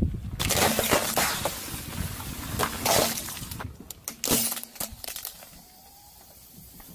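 Disposable plastic lighters cracking and snapping under a car tyre as it rolls over them: a dense run of sharp cracks and crunches that thins out about four and a half seconds in to a few faint crackles.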